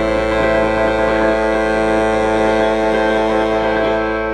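A live band's closing chord held out: electric guitar, electric bass and saxophone sustaining one steady, unchanging chord at the end of the song.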